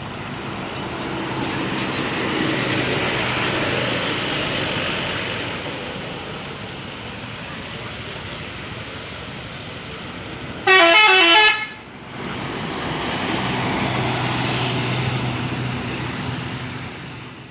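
Large buses moving past with engine noise swelling and fading twice; about 11 s in, a short, very loud blast of a multi-tone telolet bus horn, a quick warble of alternating notes lasting under a second.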